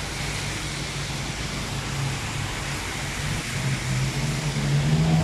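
A car driving past on a rain-soaked street, its engine and tyres growing louder near the end, over the steady noise of strong wind and heavy rain.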